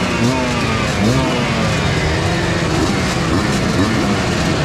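Several dirt bike engines running together at a motocross start line, throttles repeatedly blipped in quick rising and falling revs over the steady noise of the other idling engines.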